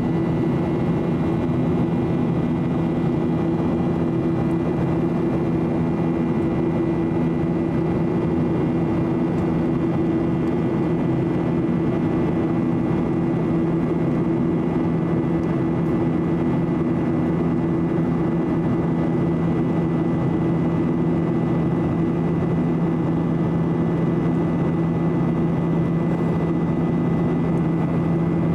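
Steady cabin drone of a Boeing 737-800 climbing after takeoff, its CFM56 jet engines and the airflow giving an even low hum with a faint high whine over it.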